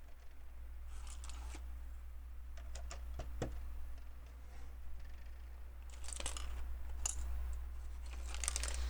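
Scattered small clicks and rattles of plastic LEGO pieces being handled and pressed together, coming in little clusters, over a steady low hum.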